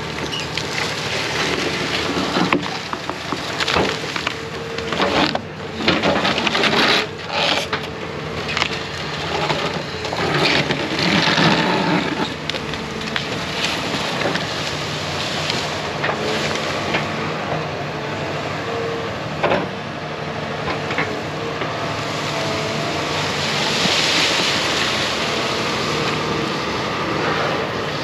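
Diesel engine of a heavy land-clearing machine running steadily under load, with repeated sharp cracking and snapping of wood as trees are dug up and broken, most of it in the first half.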